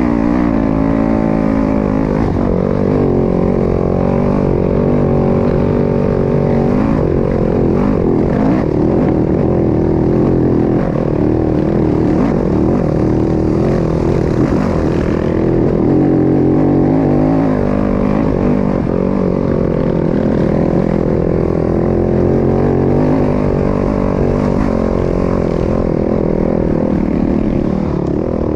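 Dirt bike engine running hard under the rider, its revs rising and falling continuously as the bike climbs a rough, rocky trail.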